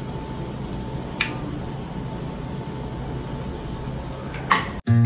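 Bolinho de chuva batter frying in a small pan of hot oil: a steady sizzle, with a light click about a second in and another near the end. The sizzle cuts off abruptly just before the end.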